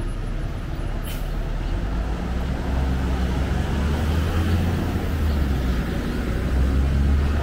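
Street traffic with a heavy vehicle's engine rumbling close by, growing louder about two seconds in and then holding steady.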